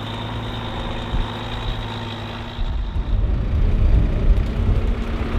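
Semi-truck diesel engine idling steadily, joined about three seconds in by strong gusts of wind buffeting the microphone.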